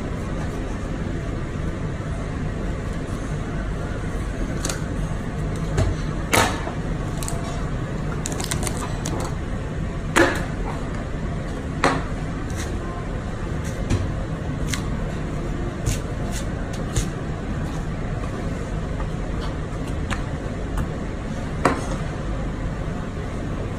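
A knife cutting a bone-in beef rib roast, with a handful of sharp knocks and clicks as the blade meets bone and the counter, over a steady low room hum.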